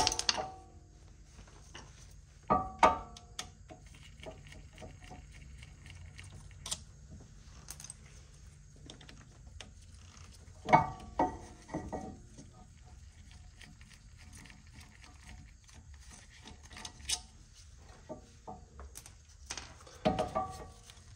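Hand tools working on the rear brake caliper's parking brake unit: scattered metal clicks and taps, with a few louder ringing clinks about two and a half seconds, eleven seconds and twenty seconds in.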